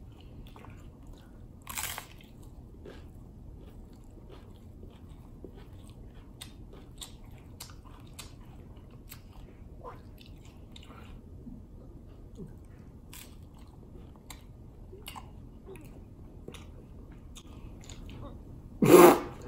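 Crunching bites into a hard Doritos-flavoured taco shell and chewing, with a sharp crunch about two seconds in and small crackles of chewing throughout. Near the end there is a short, loud throat sound.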